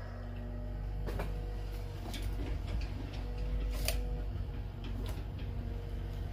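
A few scattered light knocks and clicks of cut timber being handled at a stopped miter saw, the sharpest about four seconds in, over a low steady hum.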